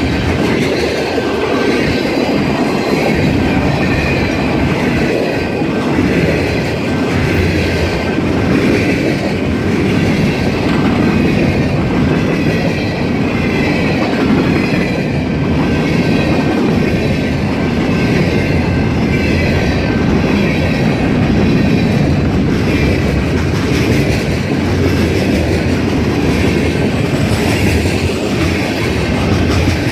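CSX freight train rolling past, a steady loud rumble of wheels on rail with the rattle of the cars. A faint thin squeal of wheels against the rail runs above it.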